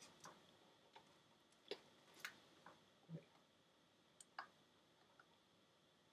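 Faint, irregular clicks and ticks of fingers picking and pulling at the plastic wrapping or seal on a DVD case.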